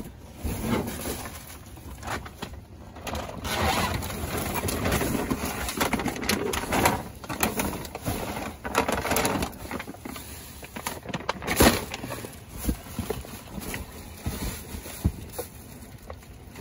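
Plastic bags, bubble wrap and a dog-food sack rustling and crinkling in irregular bursts as trash is pushed aside in a dumpster, with one sharp knock about two-thirds of the way through.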